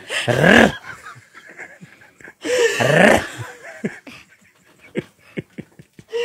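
A woman laughing hard in two breathy, wheezing bursts, about two seconds apart. A few faint clicks follow.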